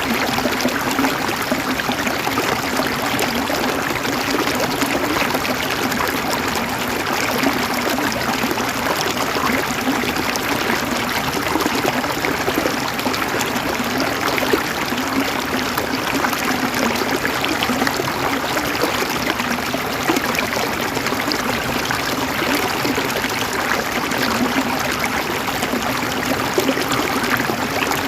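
River water flowing and gurgling over stones, a steady, even rush with small splashes throughout.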